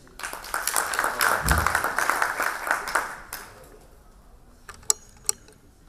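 Audience applauding for about three seconds, then dying away. Two sharp knocks follow near the end.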